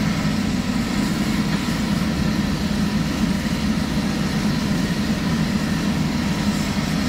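Diesel engine of a Kato hydraulic excavator running steadily while its bucket digs in wet mud: an even, low engine drone.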